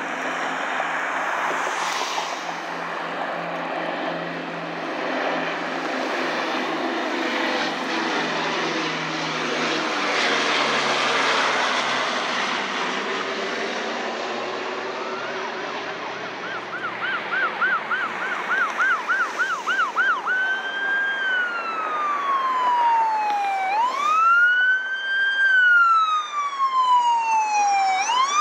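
Four radial engines of a B-29 Superfortress droning as it climbs away after takeoff, slowly fading and dropping in pitch. Past the middle, an emergency vehicle's electronic siren starts over the engine noise with a fast yelp, then turns to slow rising and falling wails that are the loudest sound by the end.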